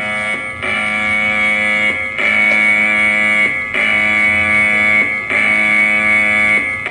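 Taiwan's emergency alert tone: a chord of steady tones sounding in repeated blasts about a second and a half long with short breaks between them, four in a row.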